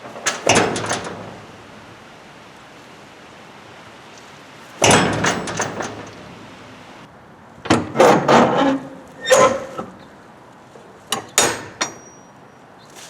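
Rusted steel shipping container door being worked by hand: about five bouts of clanking, knocking and scraping metal, each lasting up to a second or so. A brief high squeal comes near the end.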